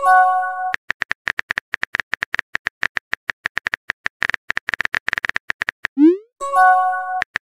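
Messaging-app sound effects: a short chime as a message arrives, then rapid phone-keyboard tap clicks for several seconds while a reply is typed. About six seconds in comes a rising whoosh as the message is sent, then another short chime.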